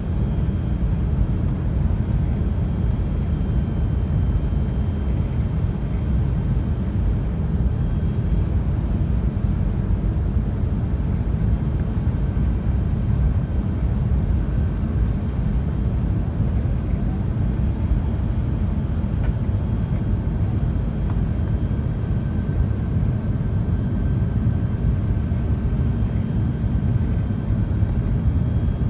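Steady low roar inside the cabin of an Airbus A380-800 climbing after takeoff: engine and airflow noise, even throughout, with a few faint steady high-pitched tones above it.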